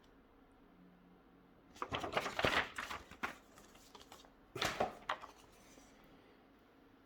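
Motherboard packaging being handled: two bursts of rustling and clicking, the first a little over a second long and the second shorter.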